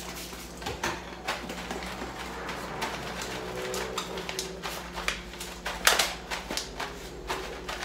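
Plastic bread bag crinkling and rustling as it is handled and wiped down with a cloth: a run of irregular crackles, loudest about six seconds in, over a steady low hum.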